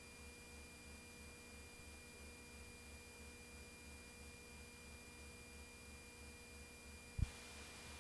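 Near silence: a faint steady electrical hum with tape hiss, and one short low thump about seven seconds in, after which the hiss grows slightly.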